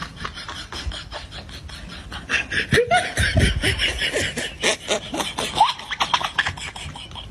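Plastic snack bag crinkling in a fast, even run of crackles, with laughter joining in about two and a half seconds in.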